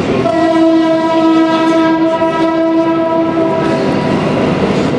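Model diesel locomotive's sound-decoder horn: one long steady blast of about three seconds, over the running noise of the model train on the track.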